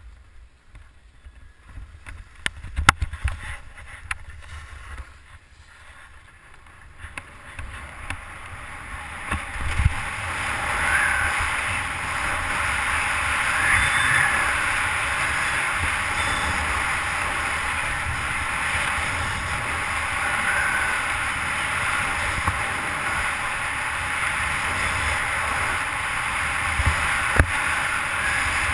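Skis sliding and scraping over packed snow during a downhill run, with wind rushing over the camera microphone. Quieter with a few knocks at first, then a steady loud hiss from about ten seconds in as speed builds.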